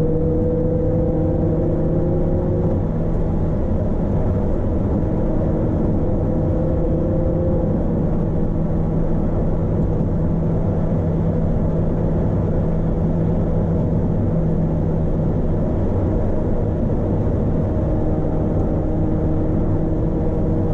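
Proton Wira 1.6 XLi's 4G92P four-cylinder engine running under way, a steady hum mixed with road noise. The engine note creeps up slowly a few times as the car gathers speed.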